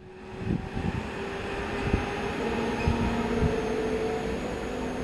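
Class 232 'Ludmilla' diesel locomotive approaching with a train of tank wagons, its 16-cylinder diesel engine running with a steady hum and several held tones, growing louder over the first second. Irregular low thumps sound through it.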